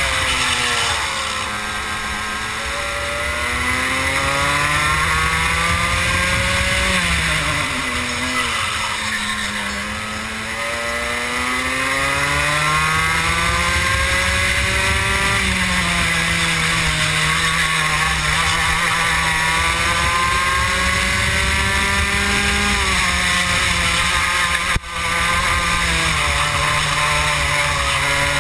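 Two-stroke racing kart engine heard onboard at race pace, its pitch climbing on the straights and falling under braking into the corners, several times over. The sound cuts out for an instant near the end.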